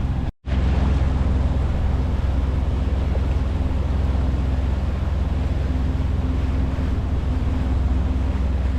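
Island Packet 485 sailboat's inboard diesel engine running steadily under way, a constant low hum mixed with wind and water noise. The sound drops out for a moment just after the start.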